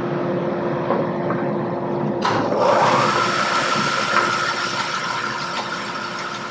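Laguna bandsaw running and resawing a zebrawood board fed along the fence. About two seconds in, a louder hiss sets in with a whine that rises in pitch and then holds steady.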